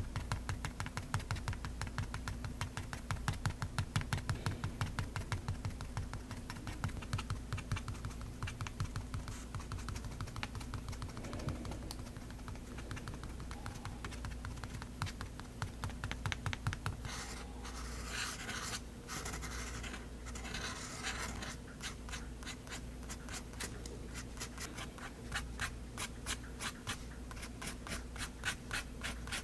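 Extra-fine-nib Faber-Castell Hexo fountain pen on drawing paper: a fast run of small nib ticks and short scratches as it dots stipple and draws short strokes, with a scratchier stretch a little past halfway.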